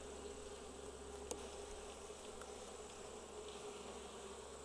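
Japanese honeybees buzzing around an opened hive, a faint steady hum of many wings. One light click about a second in.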